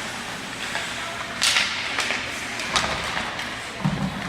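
Ice hockey play heard from the stands over steady rink noise: a few sharp cracks of sticks and puck, with skates scraping on the ice, and a duller thump near the end.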